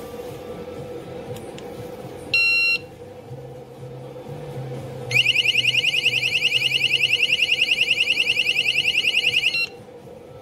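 Cuteefun wireless door and window alarm: one short high-pitched beep about two seconds in, then about three seconds later its loud siren sounds, a piercing, rapidly warbling wail lasting some four and a half seconds before cutting off abruptly.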